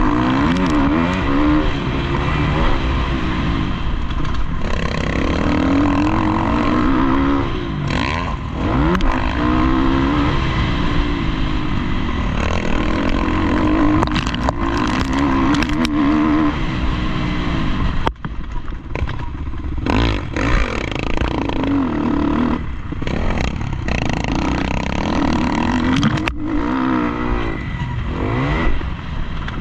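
Motocross bike engine revving up and down over and over as it is ridden around a dirt track, heard from a helmet-mounted camera, with a few sharp knocks along the way.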